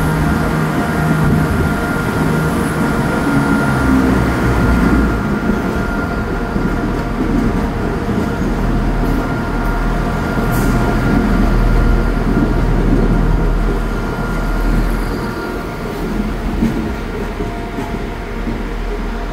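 Class 170 Turbostar diesel multiple unit's underfloor diesel engines working as the train pulls away from the platform, a steady machine drone over a heavy low rumble that builds about five seconds in and eases off slightly near the end.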